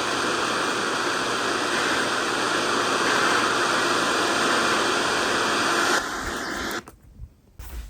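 Radio static: a steady hiss from an FM receiver tuned to a weather-radio channel with no clear signal. It weakens about six seconds in and cuts off near the end, leaving a few faint clicks.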